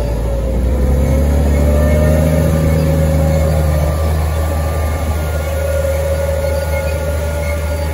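New Holland T7050 tractor's six-cylinder diesel engine running steadily as the tractor works slowly past with a seeding rig, with a steady high whine over the low engine sound.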